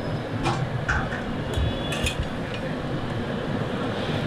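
A steel spatula clinking against a steel karahi and plates, about five sharp clinks in the first two seconds, over a steady sizzle of fat bubbling in the karahi on a gas flame.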